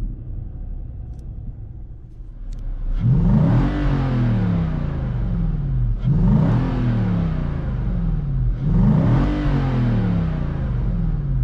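Nissan Titan's 5.6-litre V8 heard from inside the cab, idling low, then revved three times about three seconds apart, each rev climbing quickly and falling back slowly toward idle.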